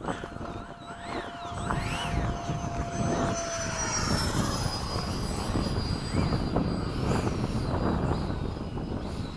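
70mm electric ducted fan of an FMS F/A-18 RC jet whining at high throttle on takeoff and climb-out, its pitch falling slowly as the jet pulls away. Wind rumbles on the microphone underneath.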